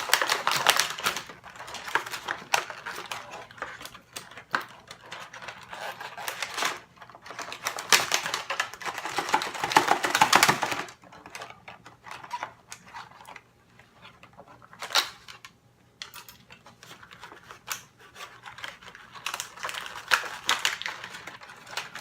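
Rustling and rapid clicking of plastic packaging and twist ties being handled as an action figure is worked out of its box, in busy spells at the start, in the middle and near the end with quieter fiddling between.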